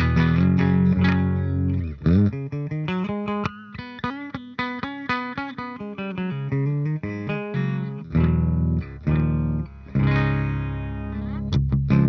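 Electric guitar, a PRS SE 245 with Arcane Inc. pickups, played through a Rivera Knucklehead Reverb KR100 valve amp with Hellmouth and Grim drive pedals engaged. Loud ringing low chords give way about two seconds in to a quicker picked single-note riff, and sustained chords return around eight seconds, ending in short choked stabs.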